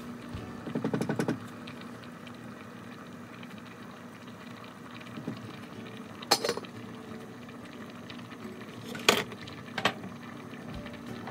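Saucepan of black sweet rice boiling on a gas burner, with a brief rapid rattle about a second in. Metal pot lids clank sharply as they are handled and set on a pot: once at about six seconds, then twice more near the end.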